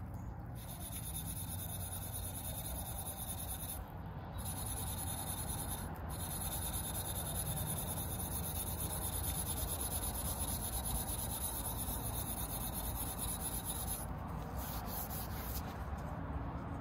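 Maroon abrasive pad scrubbing steadily along a titanium bicycle frame tube, brushing scratches out of the satin finish with the grain.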